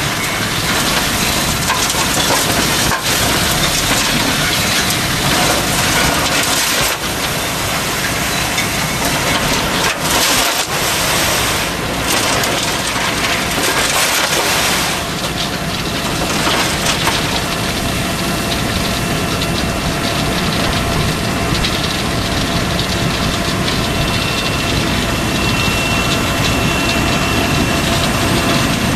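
Asphalt millings pouring from a raised dump truck bed into a Superior 48-inch Razertail truck unloader: a steady, dense rush of grit sliding and falling onto the unloader, with engines running beneath it.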